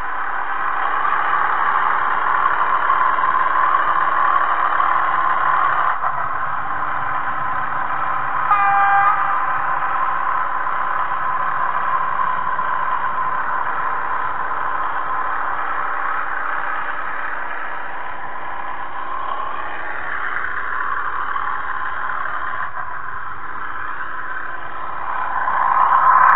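HOe narrow-gauge model train running along its track, a steady whir of motor and wheels picked up by a camera riding on the train. A short horn toot comes about nine seconds in.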